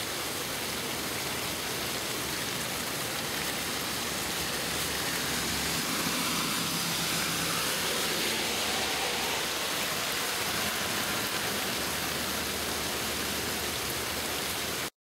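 Steady rain falling, a continuous even hiss that cuts off suddenly near the end.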